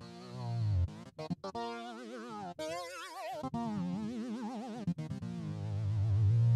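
Synth lead preset ('S Lead' from the Peculiar Sounds plugin) played as a melody line: single sustained notes with wide, wavy vibrato and sliding pitch, ending on a low held note that swells louder.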